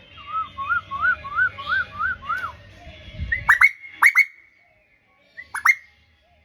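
A bird singing: a quick run of seven rising-and-falling whistled notes, then loud, sharp down-slurred calls, first in a cluster and then once more after a short pause.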